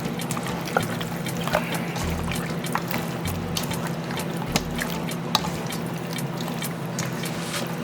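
Wet squelching and sloshing of hands mixing short ribs in a soy-sauce marinade in a bowl, with many small clicks and slaps, over background music.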